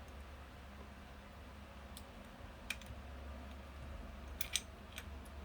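A few faint, light clicks of small metal parts as a loaded bobbin case is fitted into a Franklin Rotary sewing machine's hook, over a steady low hum.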